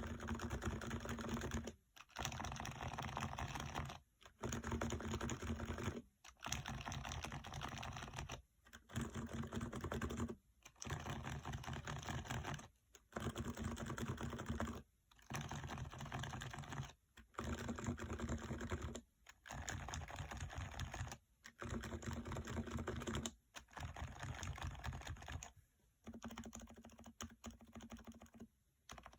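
Typing on a Topre keyboard with 55g rubber domes: runs of rapid, muffled key strokes in bursts of about two seconds, broken by short pauses, a little softer near the end.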